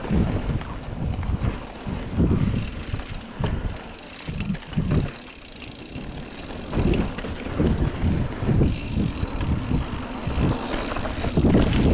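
Mountain bike riding fast down a dirt trail: wind buffets the helmet or chest camera's microphone, with the tyres rolling over dirt and irregular knocks and rattles from the bike over bumps. It eases off briefly about five seconds in.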